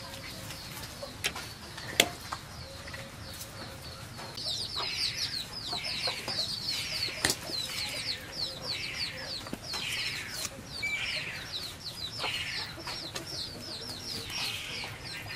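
Birds calling, likely chickens: a fast run of short, high, falling chirps, several a second, that starts about four seconds in and keeps going. A few sharp clicks come before it, the loudest about two seconds in.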